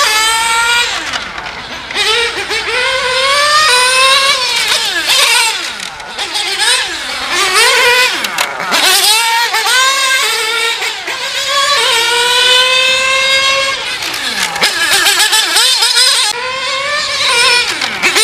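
Nitro engine of a Kyosho Inferno GT3 RC car running at high revs on track. Its pitch climbs in long rising sweeps under throttle and drops sharply several times as the car slows and passes.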